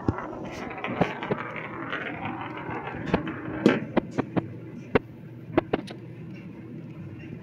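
Glass marble rolling across old hardwood floorboards: a steady low rumble with a scattering of sharp clicks, the loudest a little past the middle.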